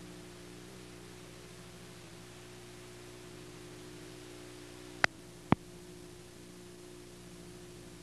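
Steady electrical hum with faint hiss from a VCR's audio output while it plays videotape with no picture. Two sharp clicks about half a second apart come midway through.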